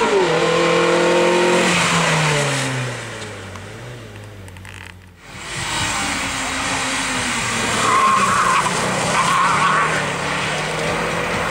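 Racing car engines passing on a slalom course. First an engine running hard, its pitch falling steadily as it goes by. After a cut about five seconds in, a Subaru Impreza's engine runs through the cones, with tyres squealing briefly twice around eight and nine seconds in.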